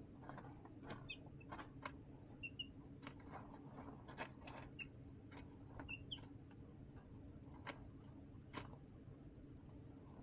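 Baby chicks in a brooder, faint: a scatter of small taps and clicks from pecking and scratching, with a few very short, soft peeps. A steady low hum runs underneath.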